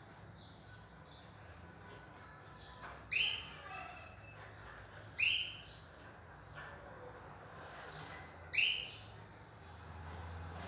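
Small cage finches chirping: three loud, sharp calls about three, five and eight and a half seconds in, with fainter chirps between them.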